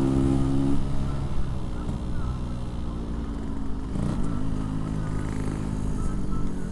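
Yamaha RX-King 135cc two-stroke single running through a Packing Power PK1 aftermarket exhaust while being ridden. The engine note eases off about a second in and picks up again, rising slightly, about four seconds in.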